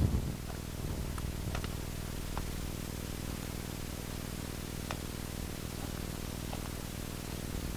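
Faint footsteps of soft leather moccasin booties on desert gravel: a few light, scattered crunches, the soft soles keeping the steps quiet. They barely rise above a steady hiss with a low hum.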